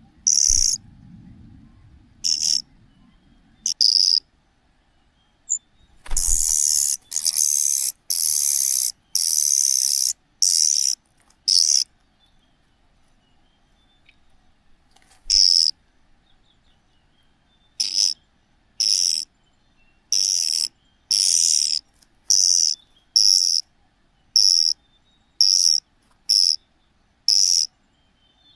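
Cuckoo chick giving loud, hoarse, hissing begging calls in short bursts. They come in a dense run, then stop for a few seconds, then return at about one a second near the end.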